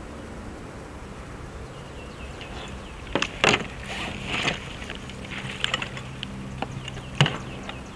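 A small hooked fish being reeled in beside a kayak, with sharp splashes and rattles from about three seconds in, the loudest two near the middle and near the end. A steady low hum underlies it all.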